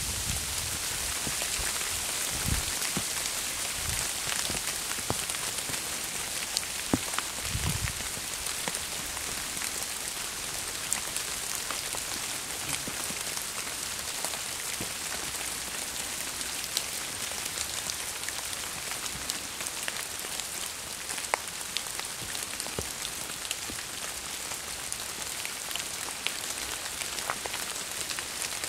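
Steady sleety rain falling on forest leaves, a constant hiss with scattered sharp drop ticks throughout. A few soft low thuds come in the first eight seconds.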